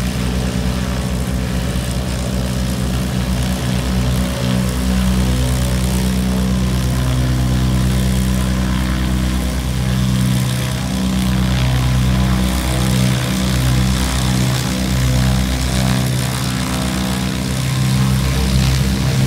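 Cessna 195's seven-cylinder Jacobs radial engine and propeller running steadily at low power as it taxis, growing louder near the end as power comes up for the takeoff roll.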